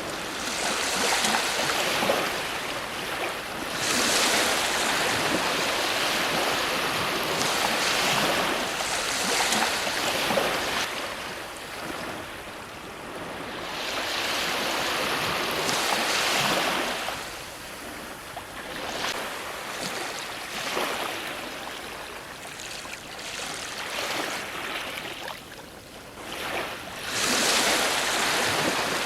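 Ocean surf breaking on a shore: a continuous hiss of water that swells with each incoming wave and ebbs between them, every few seconds, with one of the loudest breakers near the end.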